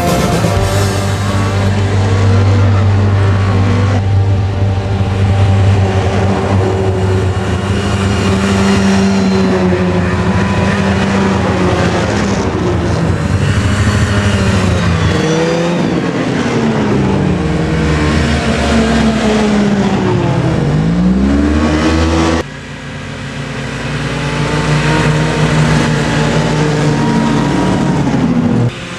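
Snowmobile engines running and revving, with the pitch sweeping down and back up several times as machines go by. The sound changes abruptly about two-thirds of the way through.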